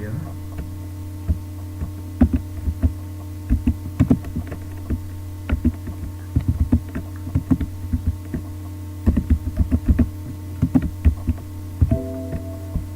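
Typing on a computer keyboard, irregular clicks of keys, over a steady electrical hum.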